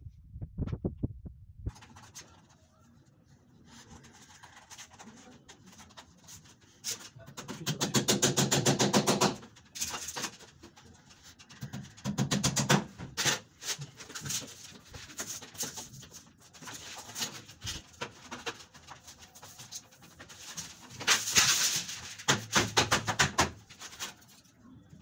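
Hammer driving small nails through the edge of a PVC wall panel: sharp metal-on-metal taps, some in quick runs of light strikes and others as single knocks.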